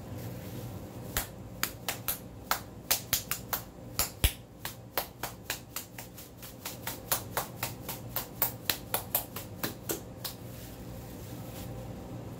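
A hand slapping the base of an upside-down steak sauce bottle, over and over, to knock the thick sauce out. It makes an uneven run of about thirty sharp slaps, two to four a second, starting about a second in and stopping a little after ten seconds.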